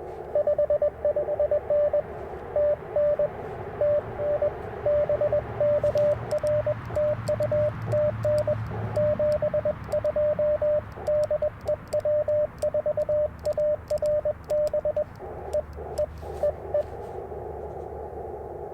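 Morse code (CW) tones at one steady pitch from the Icom IC-705 transceiver, keyed in quick dots and dashes over the hiss of the receiver's narrow CW passband. Light clicks run through the middle. The code stops near the end, leaving only the band hiss.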